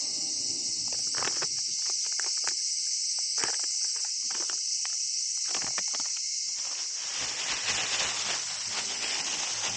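Steady, high-pitched chorus of insects, with a run of short sharp clicks and knocks through the first half.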